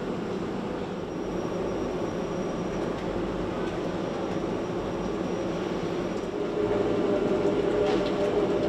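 Steady drone of aluminium foundry machinery with a low hum, growing louder about six and a half seconds in.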